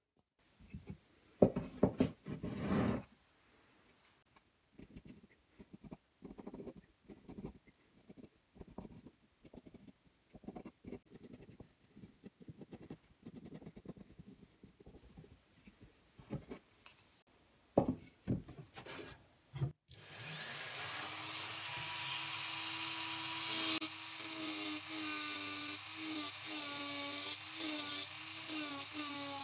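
A pencil scratching short strokes onto a carved wood block. About twenty seconds in, a small handheld rotary carving tool spins up with a rising whine, then runs with its pitch dipping again and again as the bit cuts into the wood.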